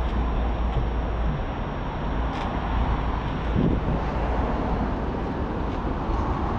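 Steady background road traffic noise with a low rumble, and a faint short knock about three and a half seconds in.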